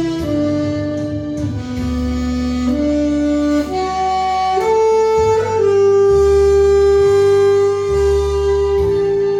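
Saxophone playing a slow melody over a backing track with a steady bass, moving through a run of held notes that climb to one long sustained note in the second half.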